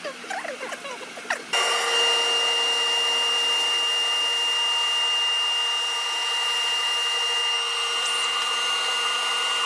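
CNC router spindle starting up about a second and a half in and then running steadily, cutting wood with a steady high whine over the noise of the cut. It is preceded by short squeaky rising and falling tones.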